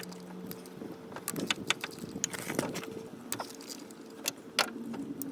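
Irregular sharp metallic clicks and clinks of hand tools working on metal, over a faint steady hum; the start of unbolting the thermostat housing on a VW Golf Mk1 engine.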